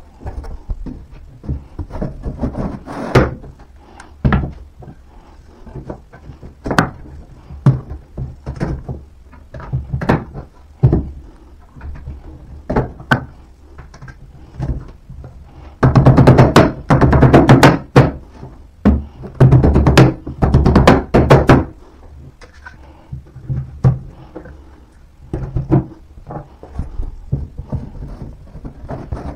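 Flat-pack IKEA Alex desk panels being handled, set down and knocked together: scattered thuds and knocks, with a longer run of rapid, louder clattering a little past halfway.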